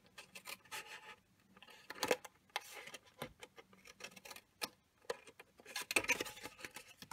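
Small scissors snipping through colored cardstock: a run of short, irregular cuts, loudest about two and six seconds in, with the sheet rustling as it is handled and turned.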